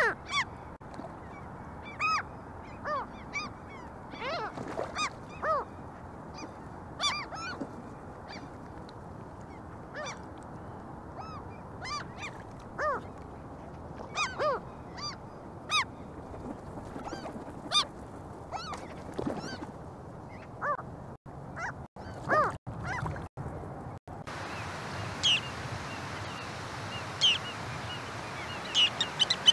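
Gulls calling again and again in short calls that rise and fall in pitch. About 24 s in a different recording takes over, with higher, thinner bird calls.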